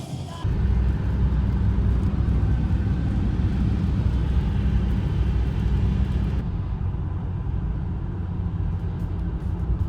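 Steady road and engine noise of a car driving at speed, heard from inside the cabin, a deep rumble with hiss above it that thins out about six seconds in.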